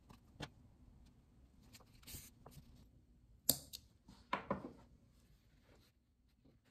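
Scissors snipping the cotton cord of a small coiled cord basket, one sharp snip about three and a half seconds in, followed by a short scratchy rustle as the cord bowl is handled and shaped by hand. A few faint clicks of handling come before it.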